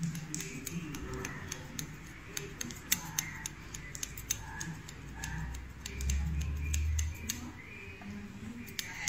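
Barber's scissors snipping through beard hair: a quick, irregular run of sharp little clicks, several a second. A low rumble comes in for about a second, six seconds in.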